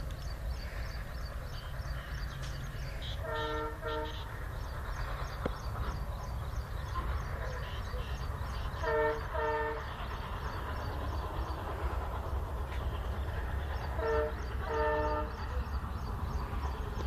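A vehicle horn sounding two short blasts at a time, three times a few seconds apart, over a steady low rumble of a moving vehicle.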